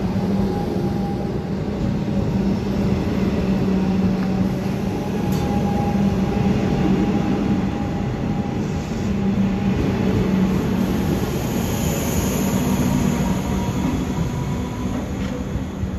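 Comeng electric suburban train pulling out along the platform, with a steady running rumble and a droning motor hum. A high whine swells and fades about three-quarters of the way through, and the sound starts to fall away at the very end as the train moves off.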